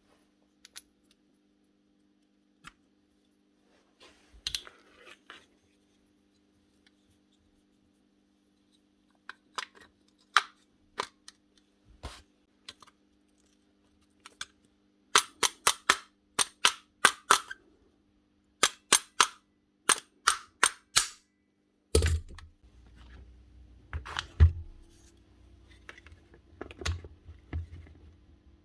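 Sharp clicks and knocks from work on a Hikoki NR1890DC cordless nail gun: scattered clicks, then two quick runs of loud clicks, then a low hum with heavier knocks near the end.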